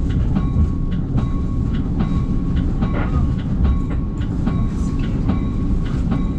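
NJ Transit passenger train running, heard from inside the car: a steady low rumble with repeated clicks of the wheels over rail joints and a faint steady whine.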